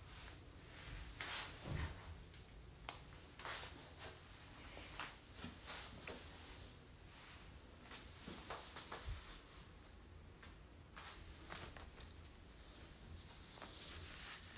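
Faint rustling and scattered light clicks, the handling noise of a phone and clothing as someone moves about in a small, quiet room.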